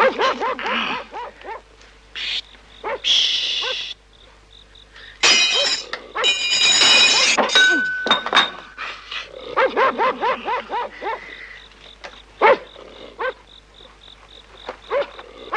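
Dogs barking and yelping in quick bursts, with loud crashes of breaking and clattering objects in the middle.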